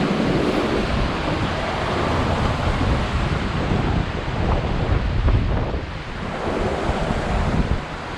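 Steady rushing of water pouring from a canal overflow, with wind buffeting the microphone in uneven low gusts.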